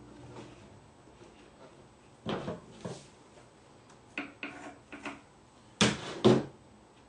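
A series of irregular knocks and handling bumps, about seven in all, with the two loudest close together near the end.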